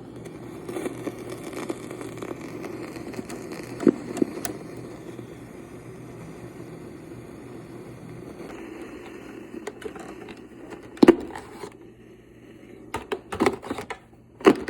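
YORX boombox cassette deck playing with no program on the tape: a steady hiss and hum from the speaker. The hiss changes about eight seconds in, and several sharp mechanical clicks and knocks come about eleven seconds in and again near the end.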